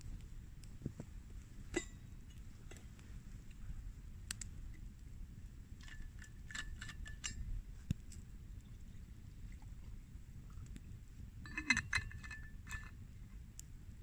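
Scattered light clinks and knocks over a low steady rumble, with two short runs of ringing clinks about six and twelve seconds in.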